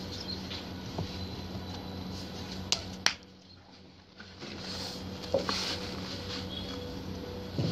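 Interlocking bricks knocking against each other as they are handled and set onto a dry-stacked wall: a few sharp knocks, two of them close together a little under 3 s in, over a steady low hum.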